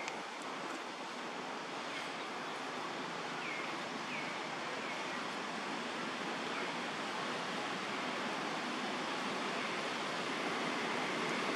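Steady hiss of outdoor forest ambience, slowly growing louder, with a few short, faint high chirps scattered through the first half.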